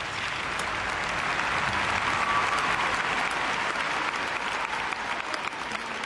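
Audience applauding, building to its fullest about two seconds in and easing slightly toward the end.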